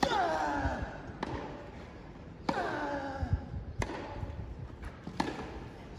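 Tennis rally: rackets striking the ball about every second and a quarter, five hits in all. The first and third hits are each followed by a player's grunt that falls in pitch.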